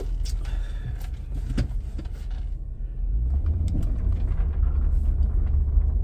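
Pickup truck driving slowly, heard from inside the cab: a low engine and road rumble that gets louder about three seconds in, with a few light clicks and rattles in the first half.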